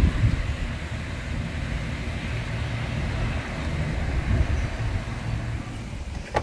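Steady background rumble and hiss that swells gently and eases off near the end.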